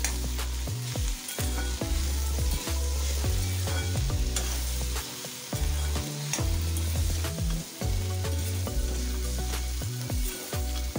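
Chopped okra stir-frying in oil in a kadai: a steady sizzle, with a wooden spatula scraping and turning the pieces in repeated strokes.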